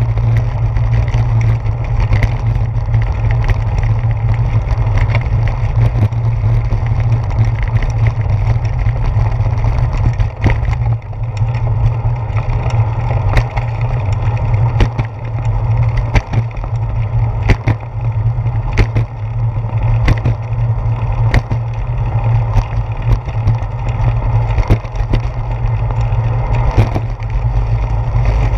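Bicycle rolling over pavement, heard through a handlebar-mounted GoPro: a steady low rumble of road vibration and wind, with irregular sharp knocks and rattles as the wheels hit bumps.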